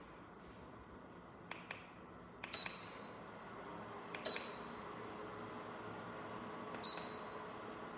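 Buttons pressed on a Dreo space heater's control panel: three clicks, each with a short high beep, about one and a half to two and a half seconds apart. A faint steady hum comes in partway through.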